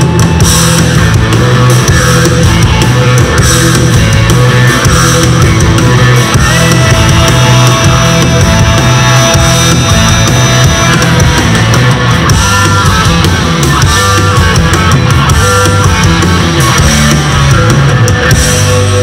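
Rock band playing live through a PA: distorted electric guitars, bass guitar and drum kit, loud and dense.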